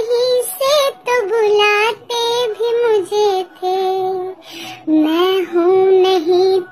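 A high, child-like female voice singing a sad Hindi song over music, with long held notes that slide between pitches.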